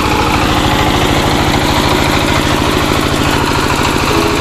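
Single-cylinder horizontal diesel engine, rated 24 hp, running steadily under load as it drives a 15 kVA generator, with a fast, even chugging pulse.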